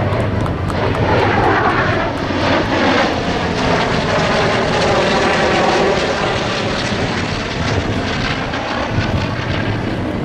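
Propeller airplane engines droning steadily, the pitch of the sound sinking over several seconds and then climbing back.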